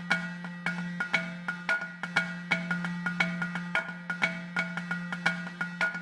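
Background music: a steady rhythm of short struck notes over a held low note.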